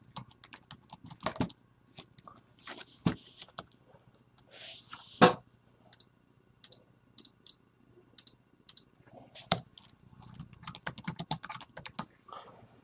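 Typing on a low-profile computer keyboard: scattered keystrokes with a few louder taps, then a quick run of keys near the end.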